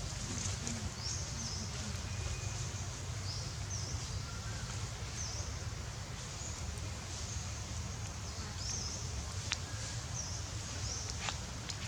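Outdoor ambience: a short, high chirp repeats about once a second over a steady low rumble, with a couple of sharp clicks near the end.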